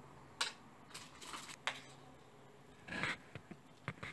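A spoon clicking and scraping against a ceramic bowl and mussel shells while sauce is spooned onto the mussels: a few light, sharp clicks and one short scrape about three seconds in.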